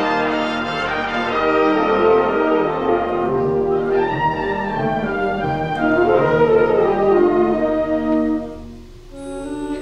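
Symphonic wind band playing, brass to the fore in full sustained chords with moving lines. Near the end the sound falls away and a softer passage starts.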